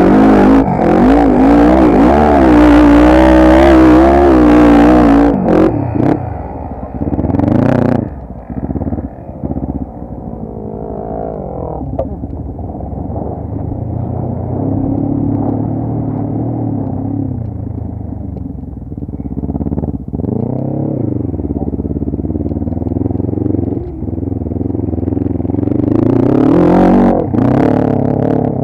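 ATV (quad bike) engine running and revving: loud, with the pitch swinging up and down through the first five seconds, then running lower and quieter, and revving up again near the end.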